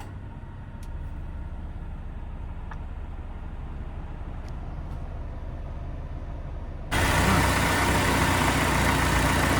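Car engine idling with a steady low hum. About seven seconds in, a much louder, noisy rumble and rush cuts in suddenly.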